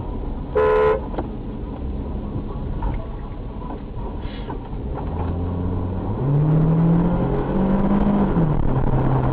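A short car horn toot about half a second in, over a running car engine. From about six seconds the engine revs up, its note climbing and then dropping back.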